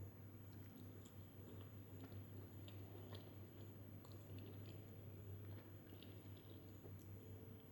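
Faint close-miked chewing of chicken biryani: many small soft wet mouth clicks and smacks, over a low steady hum.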